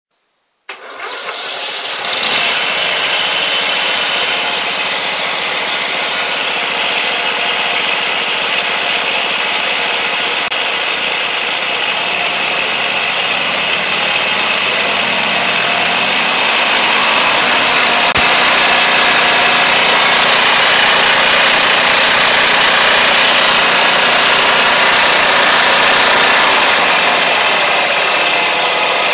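Tuned lawn mower engine starting up less than a second in and quickly running loud at high revs. It holds steady, climbs a little in the middle and eases slightly near the end.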